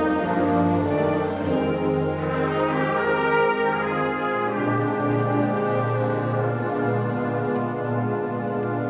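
Concert band of saxophones, trombones and other brass playing sustained chords over a held bass note, the bass moving to a new note about four seconds in.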